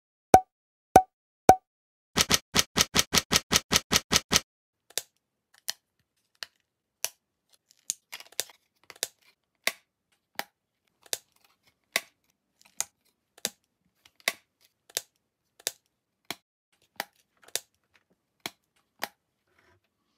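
Sharp plastic clicks of Lego plates snapping together, laid in as sound effects over a stop-motion build. Three clicks, then a quick run of about ten, then single clicks about every two-thirds of a second.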